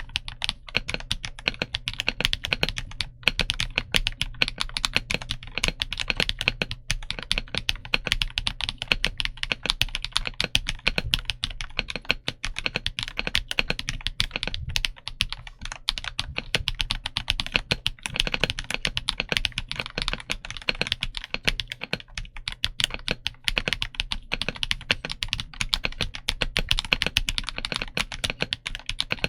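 Continuous fast typing on a BOYI C75Pro mechanical keyboard: a dense, unbroken stream of key clacks with no pauses.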